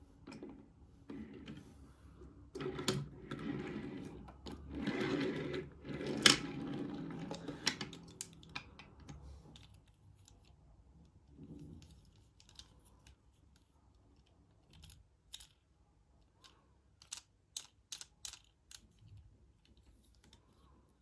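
Rustling and crinkling of toy-car blister packaging being handled and opened, loudest a few seconds in, then a run of light, sharp clicks and taps near the end.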